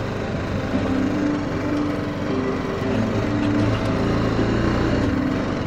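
BMW G310GS single-cylinder engine running at low speed as the motorcycle rides a dirt trail, its pitch shifting slightly with the throttle.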